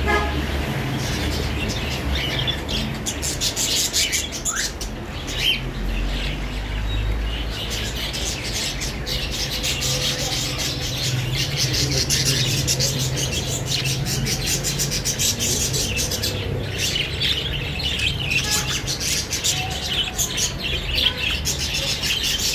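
Caged budgerigars chirping and chattering continuously in quick, high twitters.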